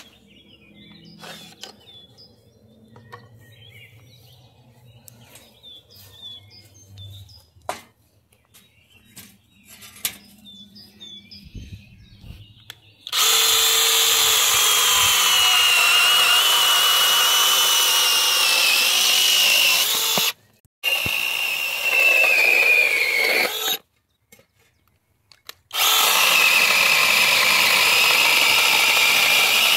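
Litheli U20 20-volt cordless mini chainsaw running in three bursts from about halfway in, separated by short stops, with a high electric whine that sinks a little in the second burst. Before it there are only a few faint clicks.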